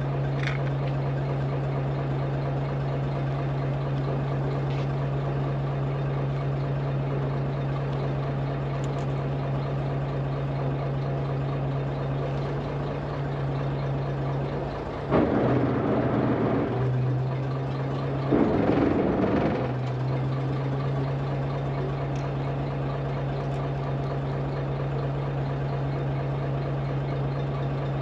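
Chartered fishing boat's engine running steadily at idle with a low hum. Two louder, rougher spells of a second or two come about fifteen and eighteen seconds in.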